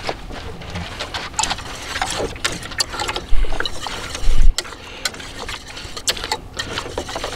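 Wire whisk stirring liquid in a stainless steel pot, with irregular clicks and scrapes as it knocks against the pot's sides. Two dull thumps come around three and four seconds in.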